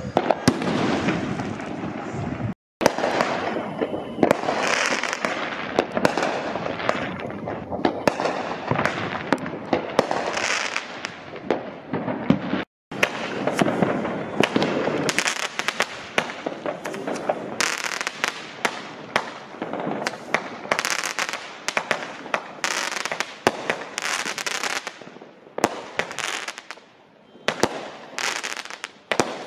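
A consumer fireworks cake, the 'Neighbor Hater', firing a long volley: a dense run of launch thumps, bangs and crackling bursts, several a second. The sound cuts out abruptly twice early on.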